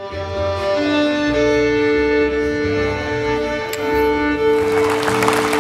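Opening theme music: long held string-like chords over a pulsing low bass. Applause rises in over the last second or so.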